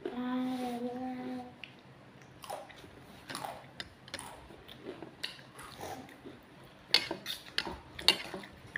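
A short hummed voice, held for about a second and a half, then chewing and mouth sounds of someone eating, with sharp clicks and clinks of tableware near the end.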